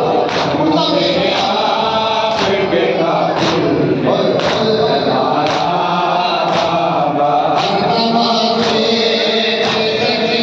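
A group of men chanting a noha, a mourning lament, together with a lead reciter. Hands strike chests (matam) about once a second in time with the chant.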